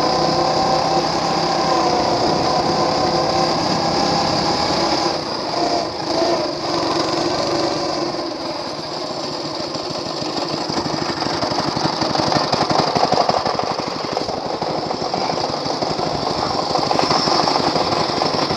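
Small gas engine of a motorized wagon running at speed with a steady pitch. About halfway through it drops into a rapid, uneven chugging as the wagon slows to a stop.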